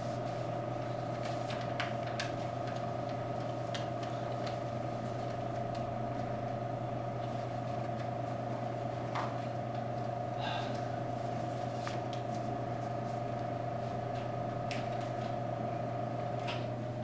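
Steady room hum, with a few faint clicks and paper rustles as posters and sheets of paper are handled.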